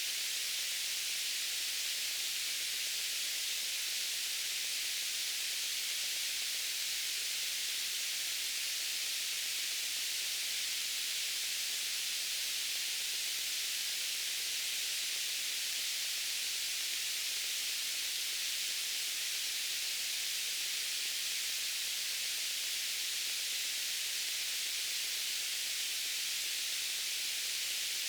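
Steady white noise: an even, unchanging hiss with most of its weight in the upper range and little low end.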